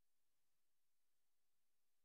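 Near silence: the recording's audio is missing here, leaving only a faint, even hiss.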